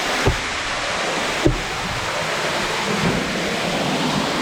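Waterfall pouring close by, a dense steady rush of water, with two dull thumps, one right at the start and one about a second and a half in.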